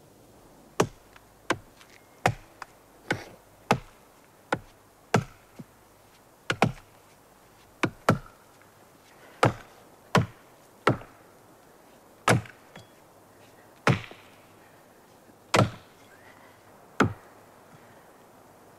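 Axes chopping into standing pine trunks: about twenty sharp blows at an uneven pace of roughly one a second, some in quick pairs, growing sparser toward the end.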